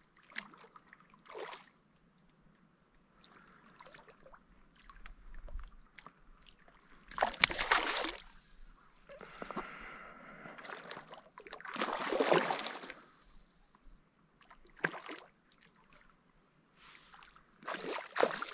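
Water sloshing and splashing in a few separate swishes of about a second each, a few seconds apart, with small clicks and trickling between.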